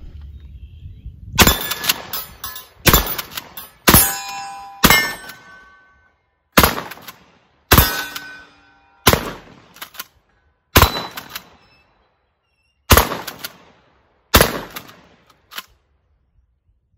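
Kel-Tec KSG pump-action 12-gauge shotgun firing 1.75-inch mini-shell slugs in a fast string, about a dozen shots spaced a second or two apart, pumped hard between shots. Steel targets ring with a clang after several of the hits. The mini shells are cycling through the gun without a malfunction.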